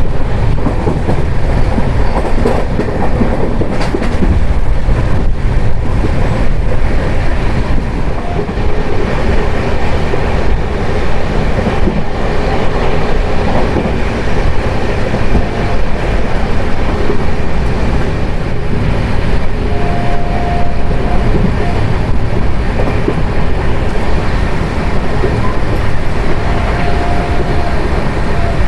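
Jan Shatabdi Express passenger train running along the rails, heard from on board: a loud, steady noise heavy in the low end with the clatter of the wheels over the track. Two faint, brief high tones come in the second half.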